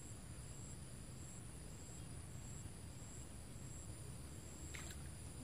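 Faint outdoor background of insects chirping, a steady high-pitched drone with a second tone pulsing at an even rate, over a low rumble. A short click comes near the end.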